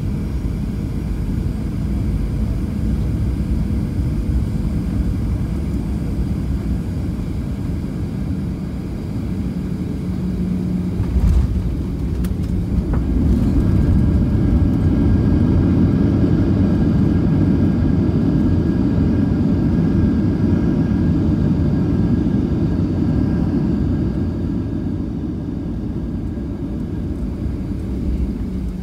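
Cabin noise of a Boeing 737-700 landing: a steady engine and airflow rumble, a low thump about eleven seconds in as the wheels touch down, then a louder rush of reverse thrust and braking for about ten seconds that slowly dies away as the plane slows on the runway.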